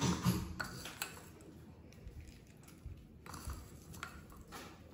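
Faint scrapes, rustles and soft taps of a spoon scooping crunchy fried mixture (sev) out of a bowl into a puri shell, in a few short spells with quiet gaps between.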